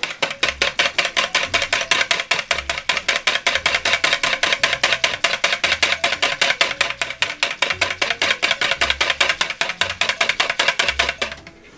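Wire whisk beating a tamarind-and-milk mixture in a plastic mixing bowl: a quick, even clatter of wires against the bowl that stops just before the end. Background music with a bass line plays underneath.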